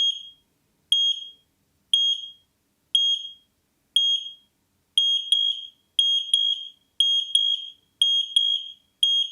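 X-Sense XP01W smoke and carbon monoxide detectors beeping while being wirelessly linked together: short high-pitched beeps about once a second. About five seconds in, each beep becomes a quick double beep.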